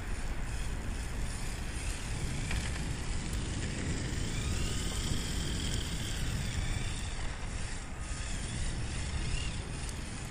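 Steady wind rumble on the microphone. About four seconds in, a faint whine rises and falls from a 1/10-scale HSP brushless RC drift car's electric motor as it is driven.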